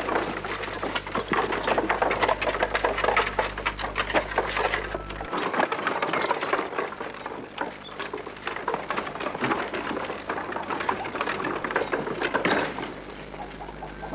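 Horse-drawn hay wagon moving: two horses' hooves clopping and the wagon's wooden spoked wheels rattling, a dense, irregular stream of clacks and knocks.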